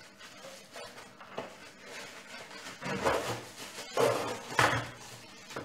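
Cardboard box being handled and its contents slid out: rustling and scraping of cardboard, with a few louder scrapes in the second half.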